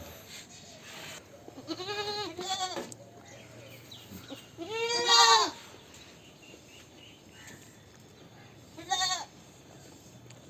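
Goats bleating: two short bleats about two seconds in, a longer, louder bleat about five seconds in, and another short bleat near nine seconds.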